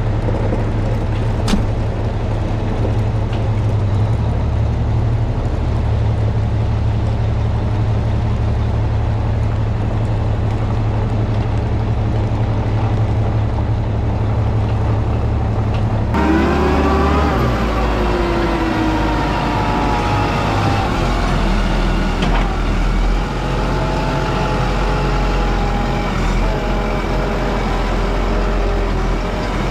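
Heavy diesel truck engine running steadily at low revs. About sixteen seconds in the sound changes abruptly to engine and drivetrain whines that rise and fall in pitch as the vehicle works.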